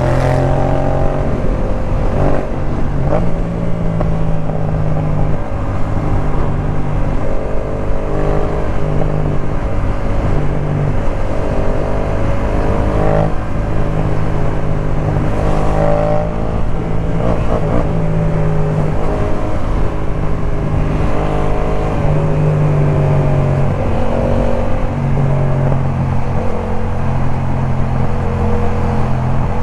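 Yamaha MT-07's 689 cc parallel-twin engine breathing through a Jeskap K4 full exhaust system while riding. The pitch climbs and drops again several times as the bike accelerates and shifts through the gears, over a steady low engine note.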